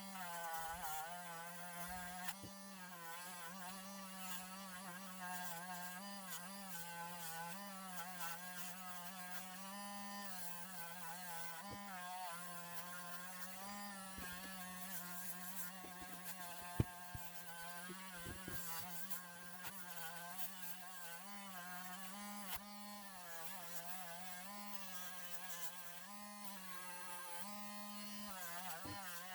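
Small power tool's motor buzzing steadily while a Scotch-Brite pad is run over a diecast metal casting, its pitch wavering as the pad is pressed on and eased off. There is one sharp click about 17 seconds in.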